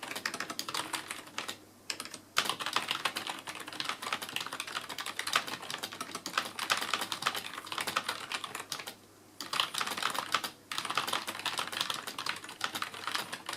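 CM Storm Devastator membrane gaming keyboard being typed on steadily, a quick run of key clicks with brief pauses about two seconds in and again about nine seconds in.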